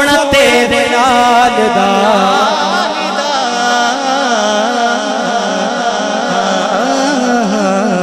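Man singing a naat solo into a microphone, drawing out a long wavering melodic line without clear words.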